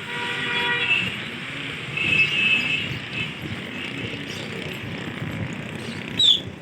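Outdoor city background noise: a steady hum of distant traffic with faint far-off voices. A short, sharp high chirp comes near the end.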